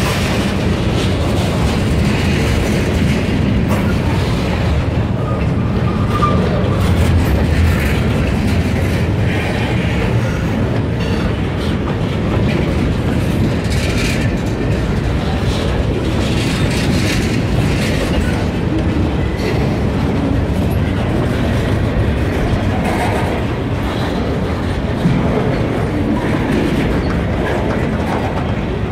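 Freight cars of a passing freight train rolling by: a steady loud rumble of wheels on rail, with the repeated clack of wheels over rail joints.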